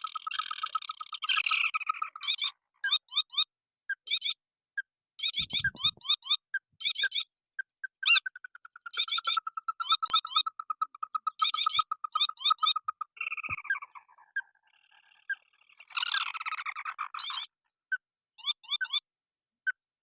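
Calls of a small rail, the burung tikusan (crake): repeated bursts of fast chattering, rattling notes with short gaps between them. There is a longer unbroken trill from about 8 to 13 seconds in, and a louder burst near the end.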